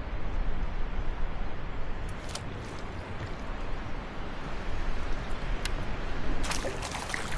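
Wind buffeting the microphone with a steady low rumble. About six and a half seconds in, water begins splashing and sloshing as a hooked fish is brought in close.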